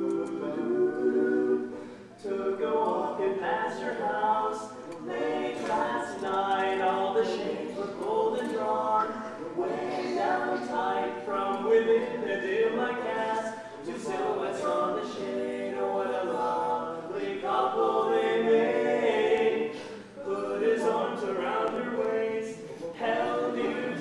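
Vocal quartet singing a cappella, several voices in harmony, with brief breaks between phrases.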